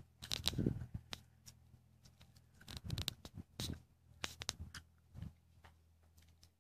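Irregular short clicks and rustles with a few soft thumps, handling and movement noise from the person filming, over a faint steady low hum.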